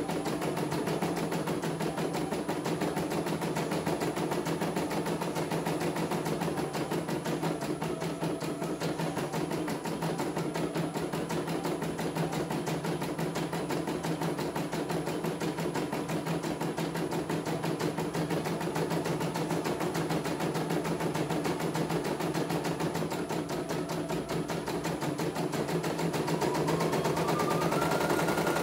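CNY E900 portable computerized embroidery machine stitching a design: a steady, very rapid run of needle strokes. Near the end a whine rises in pitch and the stitching gets a little louder.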